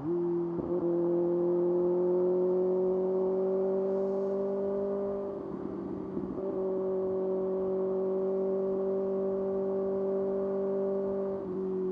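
Kawasaki ZX-6R's 636 cc inline-four engine pulling at high revs on a near-steady throttle, its pitch creeping slowly upward. There is a brief break about half a second in, a short dip in level around the middle, and the pitch falls near the end as the throttle eases.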